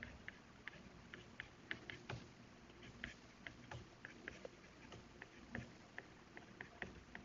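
Stylus tip tapping and sliding on a tablet's glass screen during handwriting: faint, irregular small clicks, a few each second.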